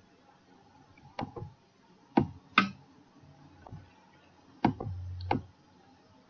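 Computer mouse button clicks: about half a dozen sharp single clicks, spaced unevenly, some in quick pairs.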